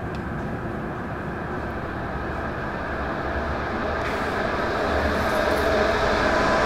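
A steady rushing, rumbling noise that grows gradually louder and brightens about four seconds in.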